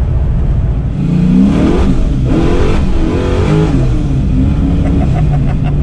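Carbureted Fox-body Mustang engine heard from inside the cabin at highway speed: a steady drone that climbs in pitch under throttle about a second in, then eases back to a steady cruise drone.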